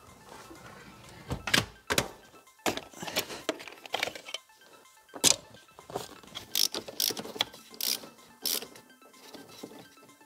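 Irregular sharp clicks and knocks of hand tools and metal seat fittings being handled at a car's front seat base, over faint background music.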